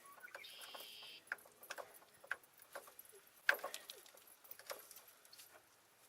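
Scattered light clicks and taps of tools and small parts being handled, with a brief high squeak about half a second in and a sharper click about three and a half seconds in.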